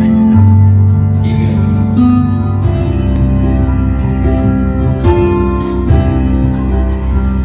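Live band music at a sound check: a keyboard holds organ-sound chords over a steady bass line, with a few sharp hits along the way.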